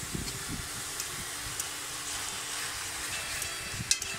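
Bok choy and white beech mushrooms sizzling in hot oil in a frying pan as they are stir-fried, a steady hiss with low knocks and a few sharp clicks of the utensil against the pan, the sharpest a little before the end.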